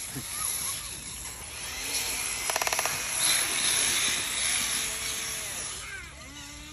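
Small electric motors of a Huina RC tracked excavator whining as it turns on its tracks and slews its upper body, with a brief rapid clatter about two and a half seconds in. Near the end a pitched motor whine rises and falls.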